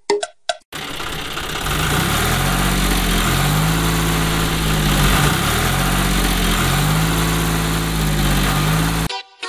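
A few short dings, then a tractor engine sound running with slow rises and falls in pitch over a steady hiss, starting about a second in and cutting off abruptly near the end.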